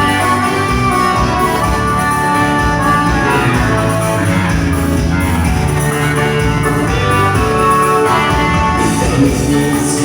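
Live dance-band music playing an instrumental passage, with no singing.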